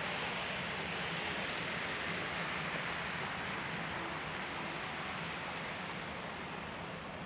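Steady hiss of city traffic on snow-wet streets, swelling slightly in the middle and easing near the end, over a low hum.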